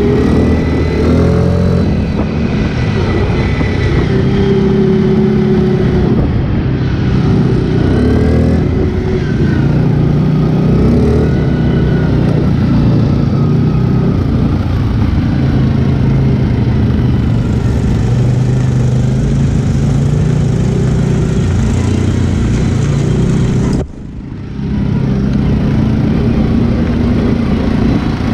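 ATV engine running as the quad drives along a dirt trail, its pitch rising and falling with the throttle. About three-quarters of the way through, the sound drops off sharply for a moment, then picks up again.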